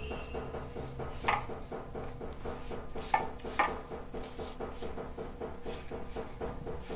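Hand rubbing a dry flour-and-oil mix in a stainless-steel bowl, with three sharp metallic clinks against the bowl, about a second in and twice more around three seconds in.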